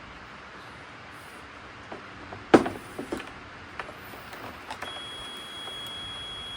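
Sharp clicks and knocks of plastic parts and connectors being handled, the loudest about two and a half seconds in. Near the end a steady high electronic beep tone from the robot mower starts and holds.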